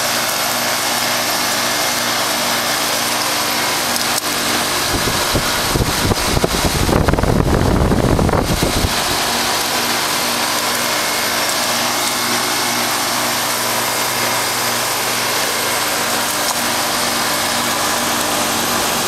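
1996 Carrier 5-ton cooling-only central air-conditioner condensing unit running: steady whoosh of the condenser fan over the hum of the compressor. Midway, a few seconds of low, uneven rumbling rise over it and then die away.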